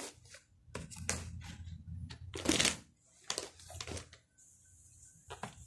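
Candy and chocolate packaging being handled: irregular rustles, crinkles and light taps of cardboard boxes and plastic wrappers, the loudest about halfway through.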